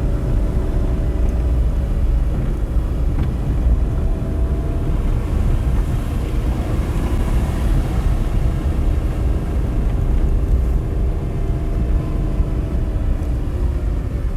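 A small Renault's 1-litre engine pulling steadily uphill, its note drifting slowly up and down, over a loud low rumble of tyres on wet gravel road.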